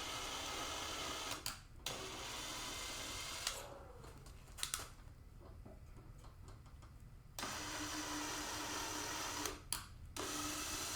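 Electric drill running in short bursts of a second or two, with brief pauses between, boring the motherboard mounting holes only partway through the board.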